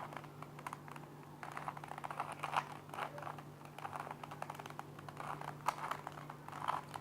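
3x3 Rubik's cube faces being turned by hand in quick runs: rapid plastic clicking and clacking as the layers snap round.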